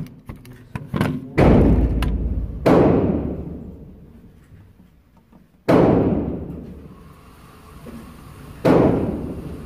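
Four shots from an AR-15 rifle, each a sudden crack followed by a long echo dying away off the concrete walls of an indoor range. The first two come about a second and a half apart and the last two about three seconds apart. A few light clicks come before the first shot.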